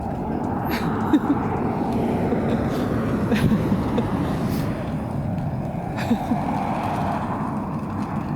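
Vehicle on the move: steady road and engine noise with scattered clicks and rattles.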